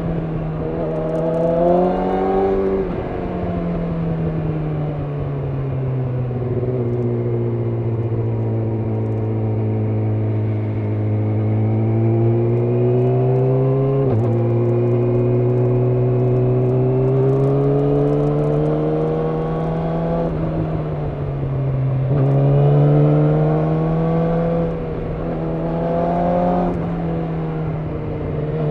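Yamaha YZF-R6 inline-four engine running under way, its pitch climbing under throttle and dropping sharply several times as gears change or the throttle closes, with a slow sink in pitch for a stretch early on as the bike slows.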